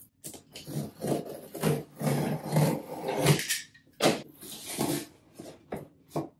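Cardboard printer shipping box being opened by hand: cardboard and packing scraping, rubbing and tearing in uneven stretches, with a few sharp clicks.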